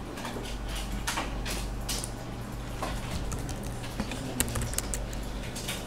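Scattered clicks of a computer mouse and keyboard keys, over a low steady hum.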